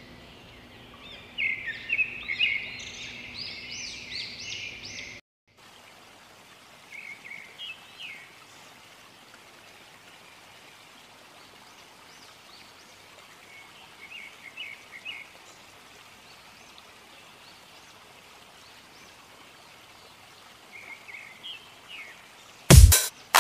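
Birds chirping over a steady outdoor hiss: lively chirping for the first few seconds, then an abrupt cut to fainter chirps every few seconds. Sharp, loud music beats come in right at the end.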